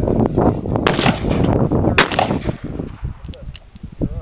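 Two gunshots at a shooting range, about a second apart, each a sharp crack with a short ring-off.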